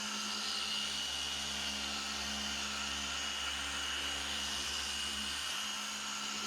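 Handheld electric polishing machine running steadily on a headlight at constant speed, a steady high whine over a low hum.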